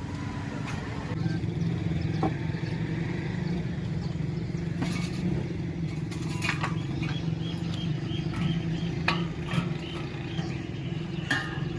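A steady low mechanical hum with scattered short knocks and clinks.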